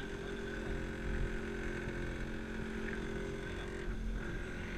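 Outboard motor running steadily at cruising speed, with water rushing and splashing past the small aluminium hull.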